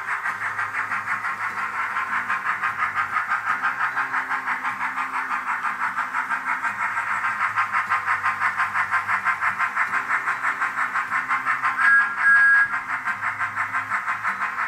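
Speaker sound of a Bachmann HO-scale Thomas the Tank Engine model: rapid, even steam chuffs whose beat follows the running speed. Near the end a whistle sounds twice in quick succession, louder than the chuffing.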